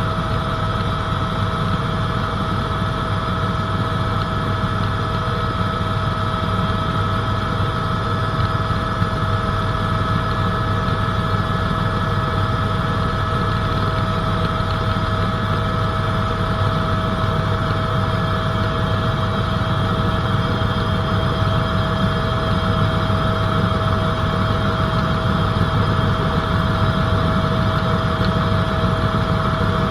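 Helicopter in flight: a steady, loud rotor and engine drone with a constant high whine over it.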